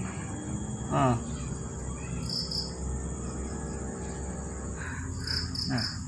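Steady high-pitched drone of insects, with short high bird chirps twice, and a brief human voice about a second in.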